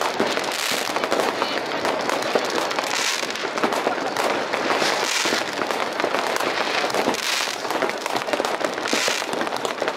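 Many New Year's Eve fireworks and firecrackers going off across a city: a continuous dense crackle of small bangs, with louder bursts about every two seconds.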